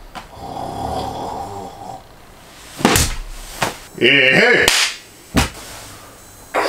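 A string of short sounds: a rough rasping noise for the first two seconds, sharp knocks about three and five and a half seconds in, and between them a brief pitched sound that wavers up and down.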